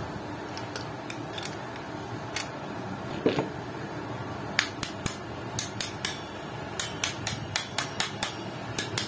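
Metal socket tapping the steel backplate down onto the posts of a scooter's clutch shoe assembly: a few scattered taps, then from about halfway a steady run of sharp metal taps, two to three a second. The tapping seats the backplate until the circlip grooves on each post show.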